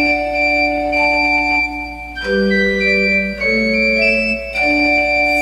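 Instrumental music between sung verses: an organ-like keyboard holding sustained chords that change every second or so.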